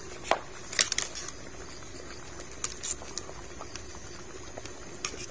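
Pot of bamboo-shoot curry boiling steadily, with a few sharp metal clicks from a ladle against a wire strainer, the loudest about a second in.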